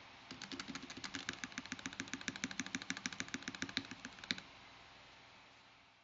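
Quick typing on a glass-cased 60% mechanical keyboard (Helheim Baldr with a polycarbonate plate, Alpaca V2 linear switches and PBT keycaps): a fast, even run of key clacks, about eight or nine a second, that stops about four seconds in. The sound is muted, similar to plastic.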